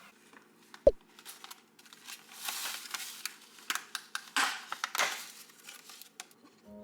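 Rustling and scattered small clicks, with one sharp thump about a second in.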